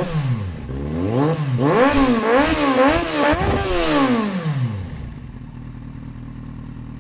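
Motorcycle engine revved in a series of quick throttle blips, the pitch rising and falling several times, then settling to a steady idle about five seconds in.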